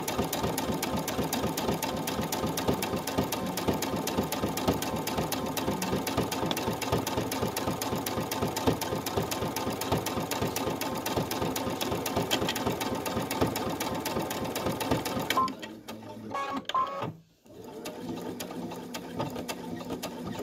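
Brother Innov-is V5 computerized sewing machine stitching fleece at a fast, steady rate. The stitching stops abruptly about 15 seconds in, followed by a few clicks.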